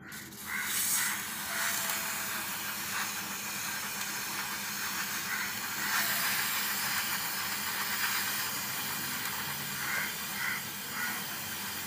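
Aerosol chain lubricant sprayed onto a motorcycle's rear chain at the sprocket, a long steady hiss from the can.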